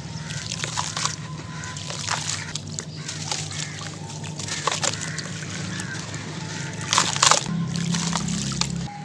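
Hands crumbling a dry sand-cement cone into a basin of water: crunchy crumbling and pattering of falling grit mixed with sloshing and splashing water. The loudest splash comes about seven seconds in.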